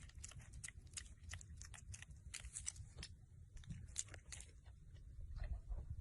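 An animal chewing food: many faint, irregular crisp crunches.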